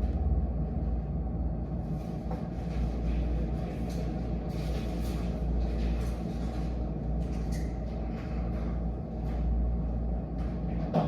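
Steady low background rumble, with scattered faint light taps.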